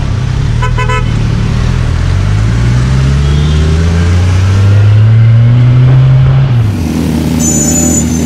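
Kawasaki Ninja 1000's inline-four engine pulling away through traffic, its pitch rising steadily for several seconds, then falling off about six and a half seconds in as the throttle closes. A vehicle horn toots briefly about a second in.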